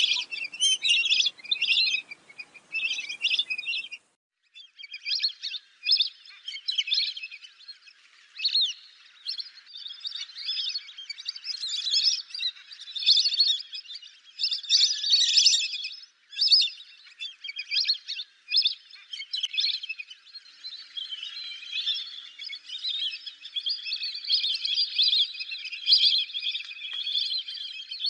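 Lesser whistling ducks calling: a flock's high, shrill whistled notes, many short calls repeated rapidly and overlapping. The calls break off for a moment about four seconds in, then grow into a denser, more continuous chorus over the last third.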